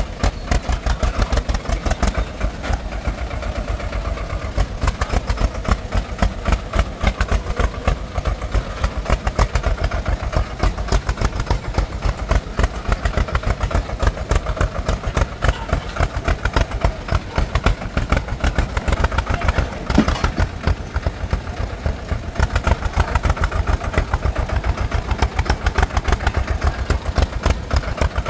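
Sonalika compact tractor's diesel engine running with a rapid, steady chugging as the tractor crawls over rough, sloping ground.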